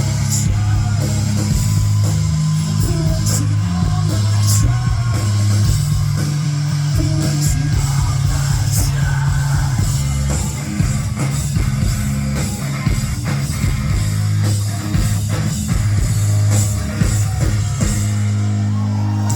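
Rock band playing live and loud: distorted electric guitars, bass and drum kit with singing, the drums hitting more densely from about halfway through.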